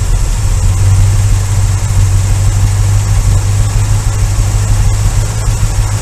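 International Harvester Scout II engine idling smoothly and steadily on a freshly fitted Pertronix Ignitor electronic ignition, while its distributor timing is being advanced toward the highest manifold vacuum.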